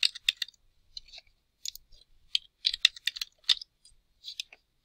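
Computer keyboard being typed on: irregular short key clicks in small clusters.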